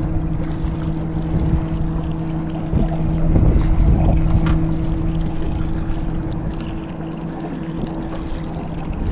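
Steady low hum of a motor on a small fishing boat, with wind buffeting the microphone and water splashing against the hull.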